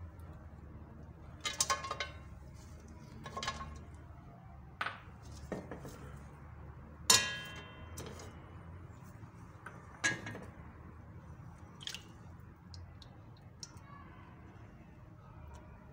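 A glass bowl and a metal slotted spoon knocking and clinking against an empty aluminium cooking pot as sliced onion is tipped and pushed in: about six sharp, ringing knocks, the loudest about seven seconds in.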